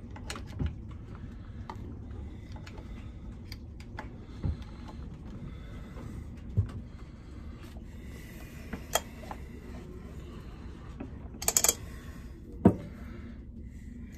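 Scattered clicks and knocks of hand tools and parts being handled on a chainsaw during a compression check, with a short run of clicks and one louder knock near the end, over a steady low hum.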